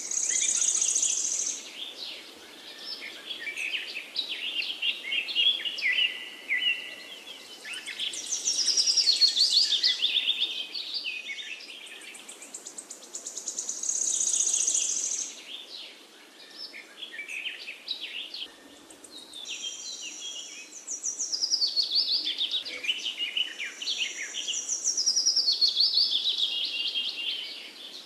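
Songbirds singing, their rapid trilled phrases and high chirps overlapping and coming in waves every few seconds over a faint steady hiss.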